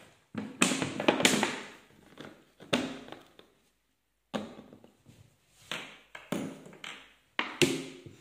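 A thin plastic soda bottle partly filled with water being gripped and handled: a string of about seven separate crackles, knocks and sloshes as the plastic flexes and the water moves inside.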